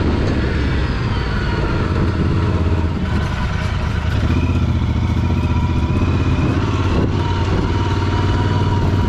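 Motorcycle engine running steadily at low speed while riding over a rough dirt track, a constant low drone.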